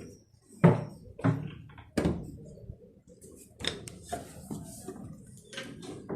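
A series of dull knocks and thuds, about five spread irregularly over the few seconds, each short and sharp.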